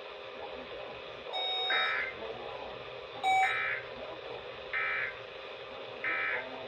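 Emergency Alert System end-of-message (EOM) digital data bursts from a NOAA Weather Radio broadcast: four short, buzzy warbling bursts, each about half a second, roughly every one and a half seconds, over steady radio hiss. They signal the end of the alert message and are part of a run of five EOMs instead of the usual three.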